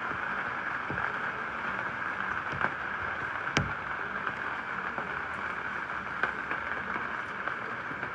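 Steady rain falling: an even hiss with scattered drop ticks and one sharper tap about three and a half seconds in.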